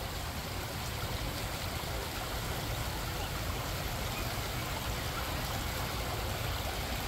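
Shallow stream babbling steadily over a stone-paved bed: an even, unbroken rush of water.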